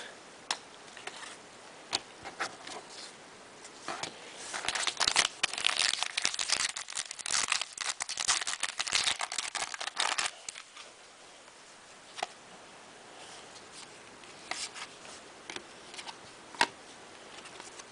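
Trading cards and their wrapping being handled: papery crinkling and rustling, thickest from about 4 to 10 seconds in, with scattered small clicks around it.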